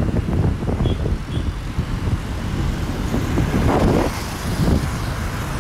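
Road traffic and engine rumble heard while travelling along a city road, loud and uneven in the low end. Two faint short high beeps sound about a second in.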